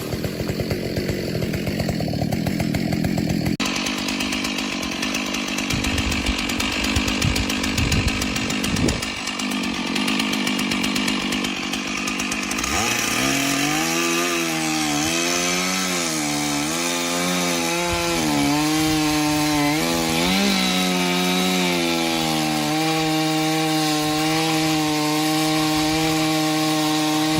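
Chainsaw cutting into wood. About halfway through, the engine note dips and rises repeatedly as the saw bogs under load and picks up again, then holds a steady high pitch near the end.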